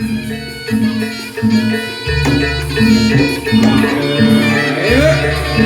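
Music with a steady beat: short pitched notes repeating over held bass notes.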